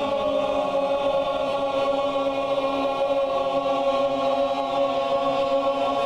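A men's barbershop chorus singing one long, steady tone together without a break, as a sustained-tone breath-support exercise.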